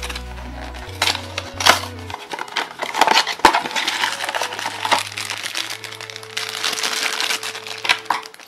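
A cardboard Funko Mystery Minis blind box being torn open and its shiny black foil bag crinkling as it is pulled out and handled, in irregular crackles. Soft background music plays underneath.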